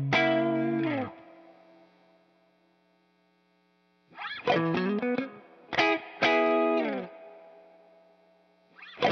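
Electric guitar played through an Ibanez CP10 compressor/sustainer pedal: a chord rings out and fades away, then a few strummed chords about four seconds in that ring and fade slowly, and more chords start near the end.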